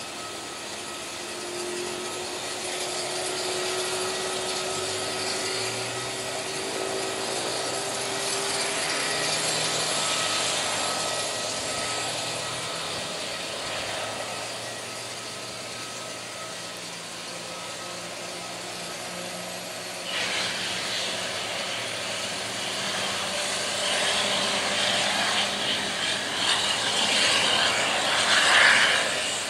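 Airbus A320neo turbofan engines running on the apron: a steady jet whine and hiss with a slowly rising low tone early on. About two-thirds in the hiss steps up and keeps building to its loudest just before the end.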